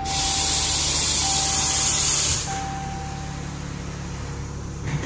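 A loud hiss lasting about two and a half seconds that cuts off suddenly, over a steady low hum.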